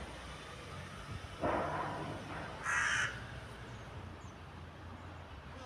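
A crow caws once, a single harsh call a little under three seconds in, preceded about a second earlier by a softer, noisier sound.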